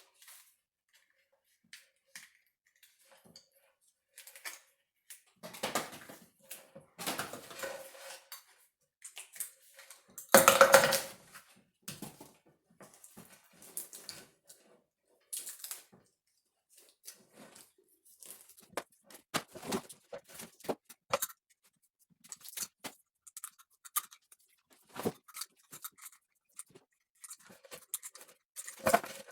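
A car engine wiring harness being handled and stripped down on a bench: irregular rustling of the taped wire bundle and small clicks and knocks of its plastic connectors. The loudest is a noisy rustle about ten seconds in.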